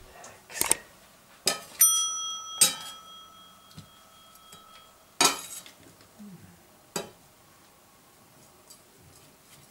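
Subscribe-button animation sound effect: several sharp mouse clicks, and a single bell ding about two seconds in that rings on for about three seconds.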